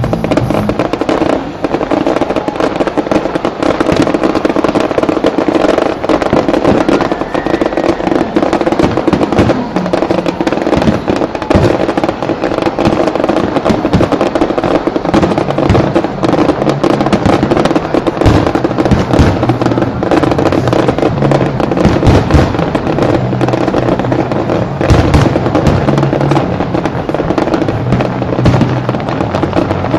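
Fireworks display going off in a dense, continuous run of bangs and crackles, with music playing underneath.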